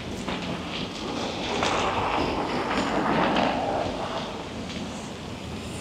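City street traffic noise: a rush of sound that swells about a second and a half in and eases off after about four seconds.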